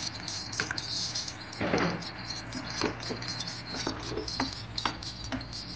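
A wooden spoon stirring squid in sauce in an aluminium pot, with irregular light knocks of the spoon against the pot. There is a longer, louder scrape a little under two seconds in.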